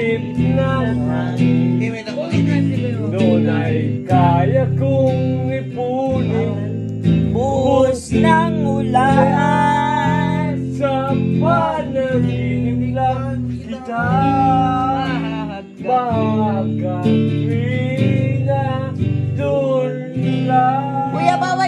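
A man singing a song while playing chords on an electric guitar, his voice carrying long held notes over the steady guitar.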